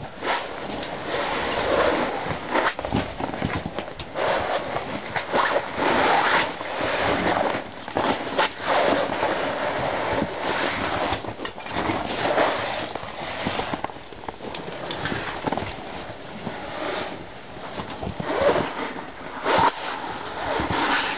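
Irregular scuffing and scraping: boots stepping on loose rock rubble and clothing brushing against the rock walls of a narrow crevice, with camera handling noise.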